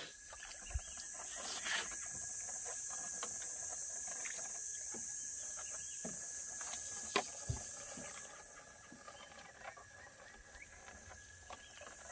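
A high-pitched hissing drone that holds for about eight seconds and then fades, with a thin steady whine under it and scattered light clicks and knocks.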